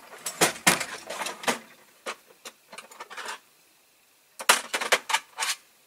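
Hand tools clicking and clattering as they are handled while a screwdriver is fetched: quick runs of sharp clicks and knocks, with a brief pause before a second run past four seconds.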